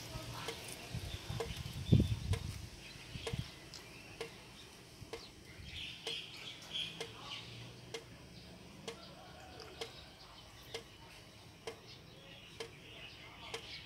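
Quiet background: a faint tick about once a second, a single thump about two seconds in, and a few faint bird chirps.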